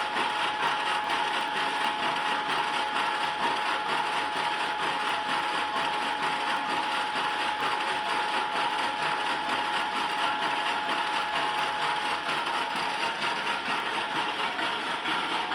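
Metal lathe running steadily while turning a 245 mm steel pipe, a constant high whine over a dense mechanical hum.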